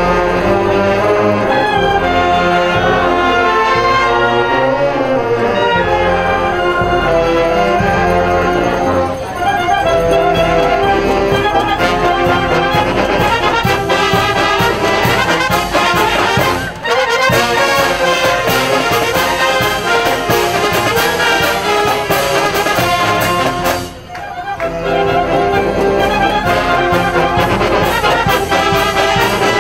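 Marching brass band playing: trumpets, trombones, saxophones and sousaphones over a steady drum beat. The music breaks off for a moment three times, about 9, 17 and 24 seconds in.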